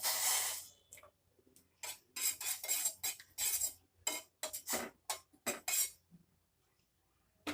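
A spoon clinking and scraping in a saucepan of tea, in a dozen or so short, irregular strokes, after a brief rushing sound at the start.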